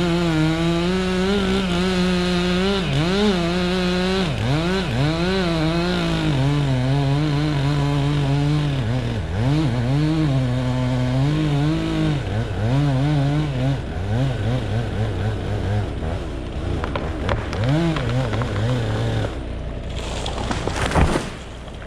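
Two-stroke chainsaw felling a poplar tree, running at high revs with its pitch repeatedly dipping and recovering as the chain bogs in the cut. The saw drops off about 19 seconds in, and a loud crash follows about 21 seconds in as the tree comes down.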